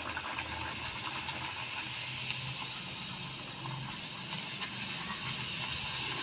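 A masala puri deep-frying in hot oil: a steady sizzle.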